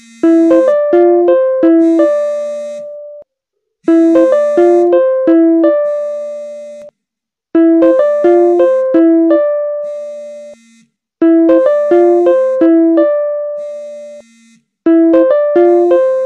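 Zoom incoming-call ringtone: a short melody of quick chiming notes ending on a held note. It repeats about every three and a half seconds, with a brief gap between repeats.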